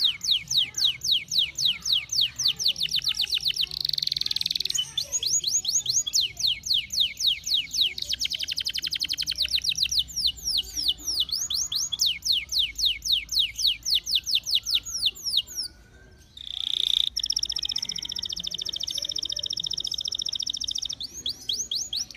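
Domestic canary singing: fast trills of repeated down-sweeping high notes, each phrase at its own speed. The song breaks off briefly about three-quarters through, then goes on as a held high rolling note before the trills return near the end.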